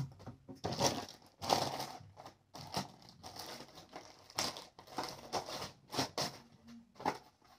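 Packaging crinkling and rustling in the hands in irregular bursts as a small package is torn open.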